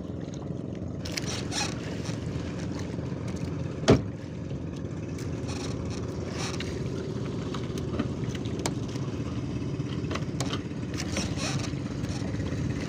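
Outrigger fishing boat's engine running steadily, with one sharp knock about four seconds in and scattered clicks and scrapes of gear against the hull.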